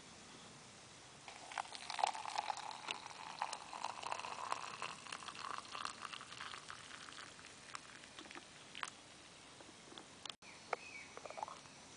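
Hot water poured from a stainless steel kettle into an enamel mug, a splashing stream lasting about six seconds. A few light clicks follow near the end.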